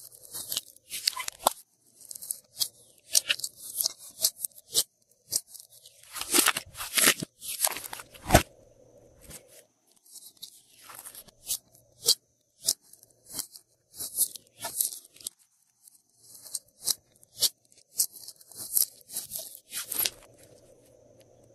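Glossy slime being pressed flat, stretched and folded by hand: irregular runs of sticky crackling and popping clicks, the loudest bunch about six to eight seconds in.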